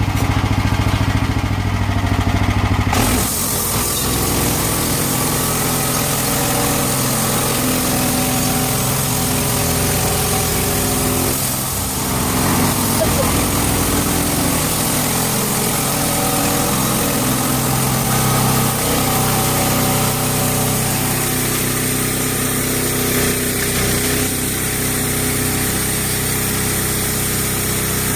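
Portable bandsaw mill's engine running steadily. About three seconds in, the sound changes and a steady hiss joins the engine.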